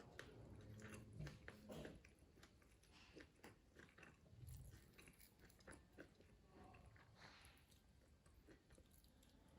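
Faint, close-up chewing and biting of food by a person eating, with many small irregular clicks.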